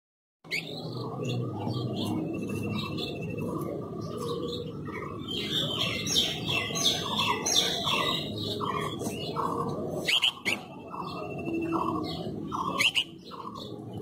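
Several birds chirping and calling together, with a short call repeated at a steady pace, a high trill, and two sharp louder chirps late on, over a steady low background hum.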